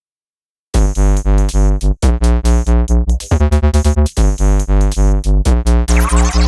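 Electronic background music with a pulsing synthesizer bass beat, starting about a second in, with a rising sweep near the end.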